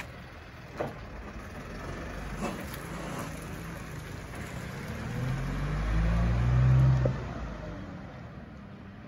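Small mobile library truck's engine pulling away and driving off, its low hum swelling to its loudest about six to seven seconds in, then dropping away as the truck moves off. A couple of brief clicks sound early on.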